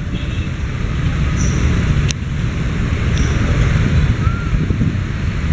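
Road traffic: a steady low rumble of passing vehicles, with one sharp click about two seconds in.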